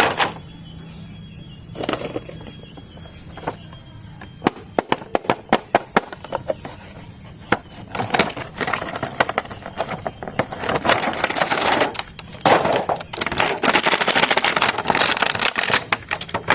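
Plastic toy packaging and action figures being handled: a run of sharp clicks and taps, then bursts of crinkly rustling from about halfway through.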